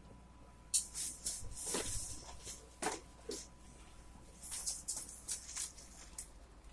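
Scattered light clicks and brief rustling from plastic wrestling action figures being handled and set down.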